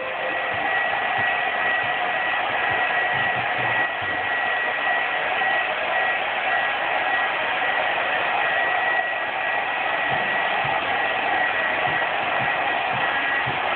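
Handheld hot-air blower running steadily, a constant rush of air with a thin high whine. It is heating a freshly sprayed layer of tint on a taillight lens so the next layer will stick.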